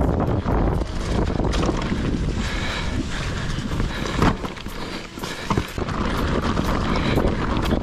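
Santa Cruz Megatower enduro mountain bike running down a dry, leaf-covered dirt trail: tyres rolling over leaves and stones, with frequent clicks and rattles from the bike over bumps and a sharper knock about four seconds in, under wind rushing over the microphone.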